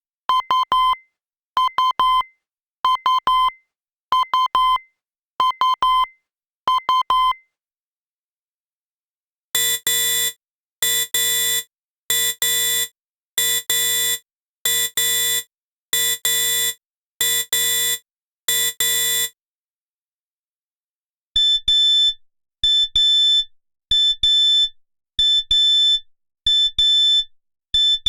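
Digital alarm clocks beeping: three different alarm patterns one after another, with a short pause between each. Each pattern is a burst of rapid beeps repeating a little more than once a second. The first is middle-pitched, the second lower and buzzier, the third high and shrill.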